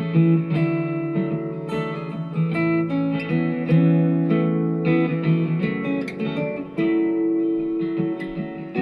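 Guitar playing a steady run of plucked notes and chords.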